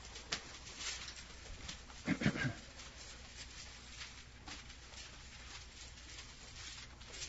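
Faint rustling and soft clicks of Bible pages being turned to find the passage, with a short low voice sound about two seconds in.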